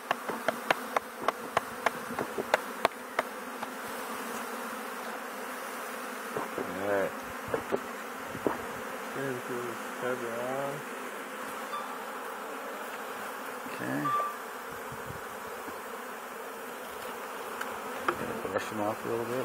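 Honeybees from a newly installed package colony buzzing steadily around the open hive. A few louder buzzes waver in pitch now and then, and a quick run of sharp clicks comes in the first few seconds.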